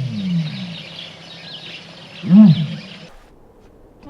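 Lion calling with deep, short grunting roars: one trails off at the start and a single loud one comes about two and a half seconds in, with birds chirping faintly behind; the sound cuts off near the end.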